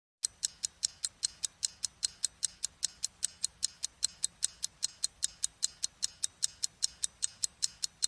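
Fast, even ticking: sharp clicks repeating steadily at about five a second.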